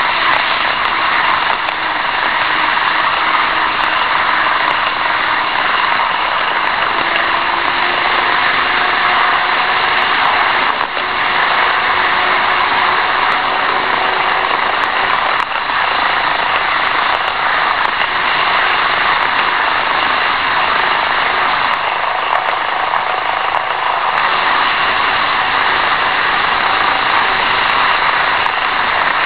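Steady whirring rumble of N-gauge model trains running: the small motors and the wheels on the track of an EF66 locomotive hauling a wagon and an E2/E3 Shinkansen set running alongside, picked up by a tiny keychain camera riding on the wagon, with a few faint clicks.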